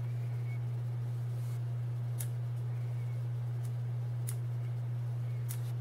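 Sharp little clicks of the Sony Cyber-shot DSC-H300's buttons being pressed while stepping through its shooting modes. The clearest clicks come about two, four and five and a half seconds in. A steady low hum runs underneath and is the loudest sound throughout.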